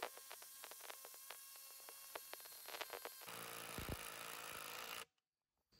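Cordless impact driver converted to a 3/8-inch impact wrench, hammering rapidly as it drives a long 8x200 mm screw into wood. Its note changes and grows louder about three seconds in, and it cuts off abruptly about a second before the end.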